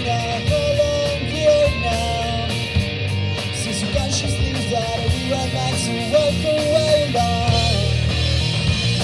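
Live pop-punk band playing: electric guitars, electric bass and a drum kit, with a melodic line carried over the top.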